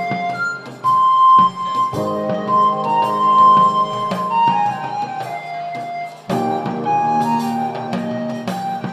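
Background instrumental music with a flute-like melody over a steady accompaniment.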